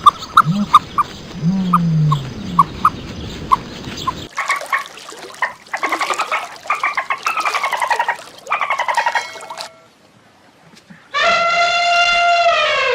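A succession of different animal calls: short repeated notes, then falling calls, then after a brief pause one steady, held call near the end.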